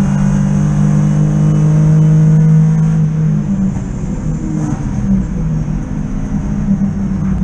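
Interior sound of a BMW 323i E36 race car's straight-six engine under load on track, heard from inside the cabin. The engine holds high revs, then about halfway the revs drop and the note breaks up as the driver lifts off for a corner, and it climbs again near the end as the car accelerates out.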